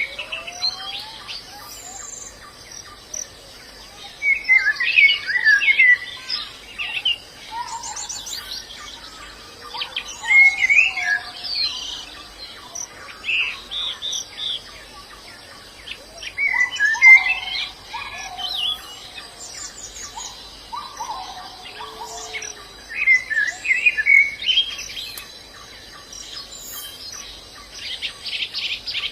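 White-eyes (pleci) singing: bursts of fast, high twittering song every few seconds, with lower whistled notes between them.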